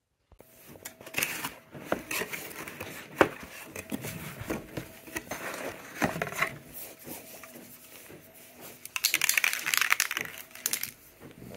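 A cardboard box and its packing being handled: rustling and crinkling with knocks and light metal clinks as aerosol spray paint cans are moved in it. The rustling grows louder for a couple of seconds about nine seconds in.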